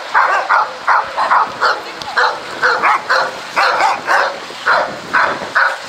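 A dog barking repeatedly, about two barks a second, in a steady run that stops near the end.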